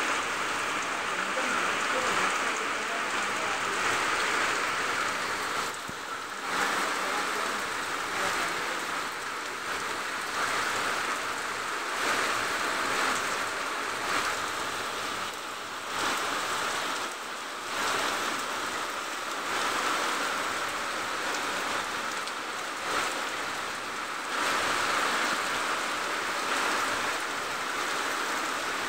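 Heavy rain pouring steadily on garden foliage and ground, a dense even hiss that swells and eases slightly every few seconds.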